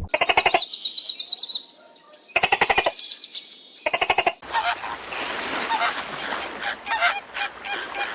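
An animal's rapid, pulsed calls in three short bursts, then a rough hissing noise with scattered clicks for the last four seconds or so.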